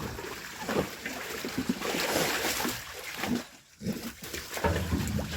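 Water splashing and sloshing in a sheep dip bath as sheep are put through it, with scattered knocks and a louder stretch of splashing about two seconds in.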